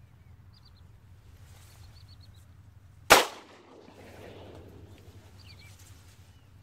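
A single shotgun shot about three seconds in, sharp and loud, followed by a fading rolling echo for about a second.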